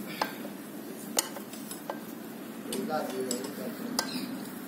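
Metal hand tools clinking against the parts of a stripped-down engine: four sharp metallic clinks, irregularly spaced.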